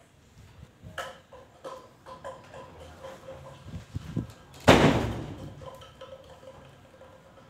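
A few sharp knocks and taps, then one loud bang about four and three-quarter seconds in that rings out and fades over about a second.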